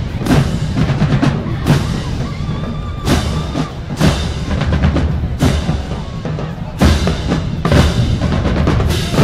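Marching band playing a drum-heavy passage: deep bass drums under sharp crashes about every second or so, with faint held horn tones.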